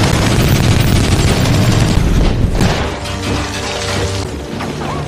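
A car hitting a lake: a loud splash and rushing spray with a deep boom, lasting about two and a half seconds, then dying down into film score music.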